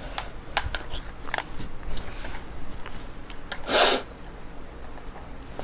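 Small clicks and knocks of hands fumbling at a small Stanley tool pack that will not open, with a short loud hissing burst almost four seconds in.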